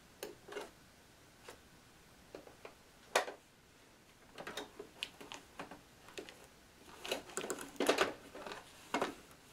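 Irregular clicks and rustling of a fabric cap clamped in an octagonal embroidery hoop being handled and shifted on a sewing machine bed. There is a sharp click about three seconds in, and busier rustling from about four and a half seconds on.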